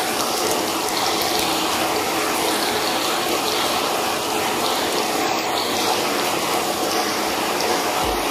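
Sliced onions sizzling in hot oil in an iron karahi, a steady even hiss with no let-up.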